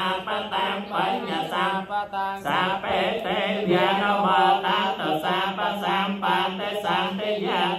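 Buddhist paritta chanting in Pali, a continuous recitation on a near-steady reciting pitch, with a brief pause for breath about two seconds in.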